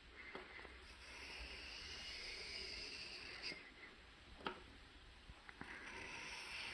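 Carbon steel knife blade being stroked across a water-lubricated sharpening stone: a faint, scraping hiss that swells and fades with the strokes, with a couple of light clicks around the middle.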